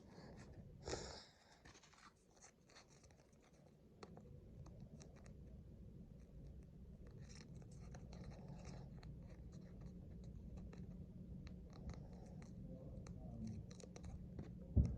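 A sticker being peeled and pressed onto a cardboard toy box: scratching and rubbing with small clicks, a short louder scrape about a second in, and a thump near the end.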